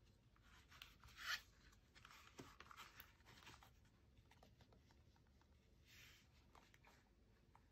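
Faint rustling and rubbing of a soft fabric goggle bag as snow goggles are slid out of it and handled, loudest a little over a second in, with a softer rustle around six seconds.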